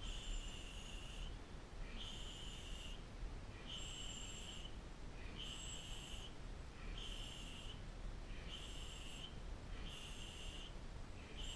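Rhythmic whistling exhalations through pursed lips, one sharp, hissing breath of about a second with each knee strike, repeating about every second and a half.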